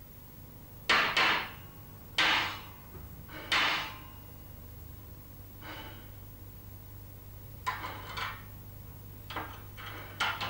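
Sharp knocks of thin steel sheets being tapped and set down on a workbench while the gap between them is lined up. Three louder knocks in the first four seconds, then several lighter ones.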